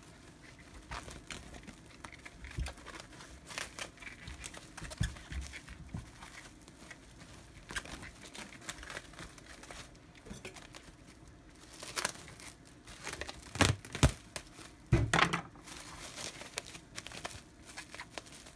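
Plastic cling film crinkling and crackling as it is pulled off the roll and wrapped tightly around a package, with a few louder knocks about two-thirds of the way through.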